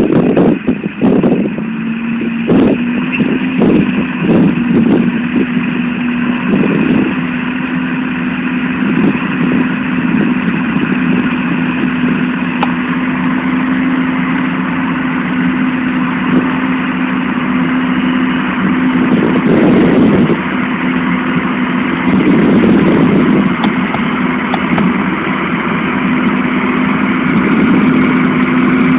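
John Deere 7920 tractor's six-cylinder turbo-diesel engine running steadily under load while pulling a six-furrow plough, with a steady drone and knocks and thuds scattered through the first several seconds.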